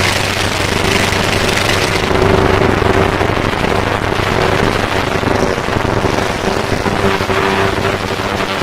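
Super Formula race car engine running at a steady idle, with a rapid, rough crackle from the exhaust over a held low note.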